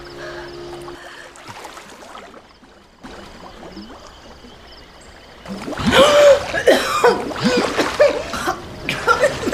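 A woman coughing and gasping for breath after being held under water, starting a little past halfway through after a quieter stretch.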